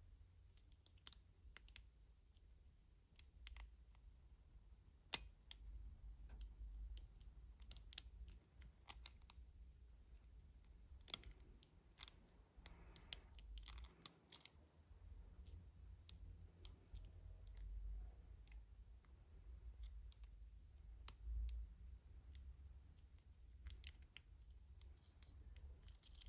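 Faint, irregular clicks and scratches of a half-diamond lock pick working the pins of a key-in-knob lock cylinder, over a faint low rumble.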